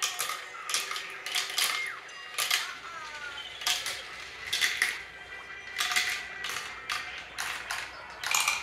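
Small balls rolling and clattering down a plastic marble run's spiral tracks and tubes: an irregular run of sharp plastic clicks and clacks.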